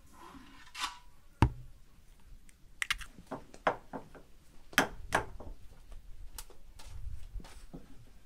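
Eggs being tapped and cracked by hand over bowls on a wooden table: a run of sharp shell clicks and small knocks, with one louder knock about one and a half seconds in.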